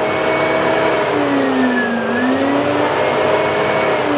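Hoover Turbo Power vacuum cleaner's motor running with a steady whine. Its pitch dips and recovers about halfway through and starts to fall again at the end.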